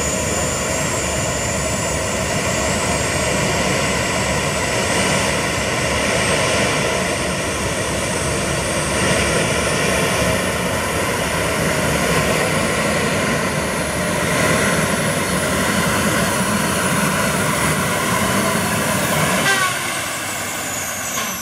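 Pulling tractor's engine running hard at full throttle through a pull. Near the end it backs off, and a high whine falls away in pitch.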